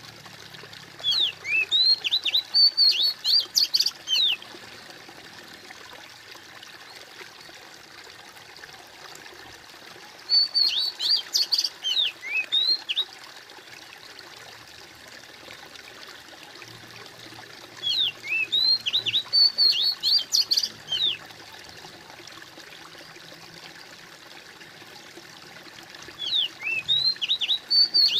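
Steady trickling stream water, with a songbird singing a quick phrase of chirps about every eight seconds, four phrases in all. The birdsong is the loudest sound.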